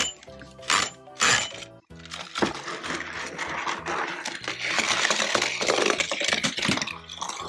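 Three sharp plastic clacks in the first second and a half, then a continuous rattling clatter of small toy cars running over the plastic ramps of a toy car garage. Background music plays throughout.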